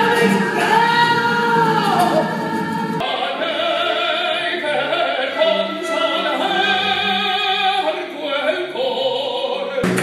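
Singing with strong vibrato over musical accompaniment, in an operatic style, from a live stage musical. About three seconds in the sound cuts abruptly to another sung passage.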